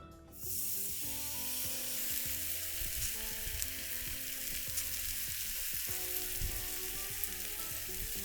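Whole red mullet sizzling steadily on a hot, salted plancha griddle, the sizzle starting about half a second in as the fish goes on.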